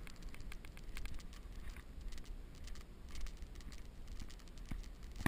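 Footsteps crunching on a gravelly dirt trail, irregular clusters of small crunches about once a second, over a low steady rumble.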